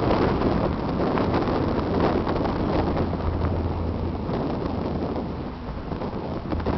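Wind buffeting the microphone over a steady low engine drone.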